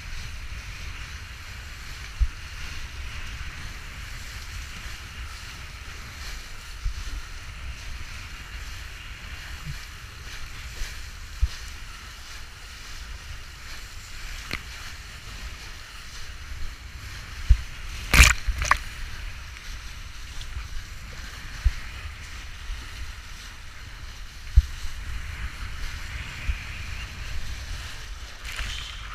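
A kiteboard planing fast over choppy water: a steady hiss of spray and rushing water, with wind buffeting the microphone and scattered low thumps as the board hits the chop. There is one sharp knock about two-thirds of the way through.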